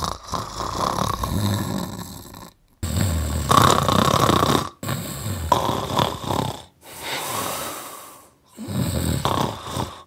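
A man snoring heavily, about five long snoring breaths one after another with short pauses between them.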